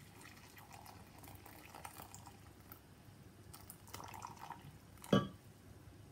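Boiling water poured from an electric kettle into a measuring jug, a faint trickling fill. About five seconds in comes one short, sharp knock, the loudest sound.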